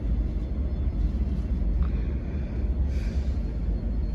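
Steady low rumble of a Boeing 777-300's jet engines at idle as the airliner taxis slowly in to its gate.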